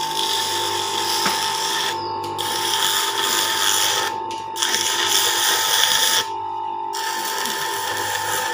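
V-Guard 1 HP single-phase motor running with a steady whine while sandpaper is held against its spinning shaft, polishing it clean with a rasping hiss. The hiss breaks off briefly three times as the paper is lifted and pressed back on.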